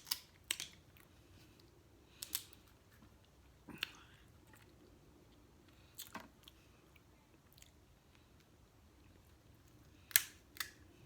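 Close-miked eating of a seafood boil: chewing with a handful of sharp, irregular clicks and smacks. The loudest comes near the end, two of them close together.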